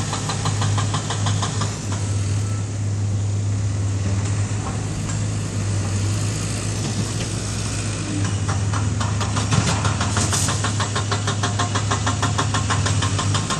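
Small crawler bulldozer's diesel engine running steadily under load as it pushes dirt, with a rapid clatter that fades a couple of seconds in and comes back about eight seconds in.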